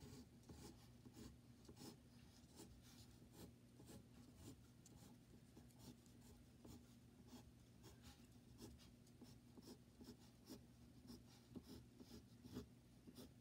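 Faint scratching of a wooden pencil on paper in quick, short, repeated strokes as lines are shaded in.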